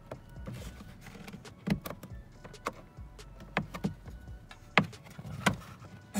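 Plastic grille retaining clips on a Dodge Charger being pushed through and popped out by hand, giving several sharp clicks and knocks spaced about a second apart.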